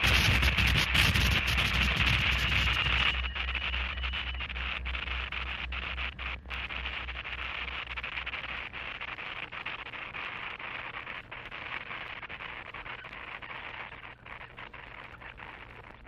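Harsh noise music: dense distorted static and crackle over a throbbing low hum. About three seconds in the highest hiss drops away abruptly, and the noise then fades out slowly as the piece ends.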